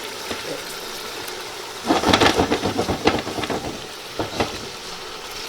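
Chicken frying in masala in a pot, sizzling steadily, with a spoon scraping and knocking against the pot as it is stirred, a run of clatters about two seconds in and one more near four seconds.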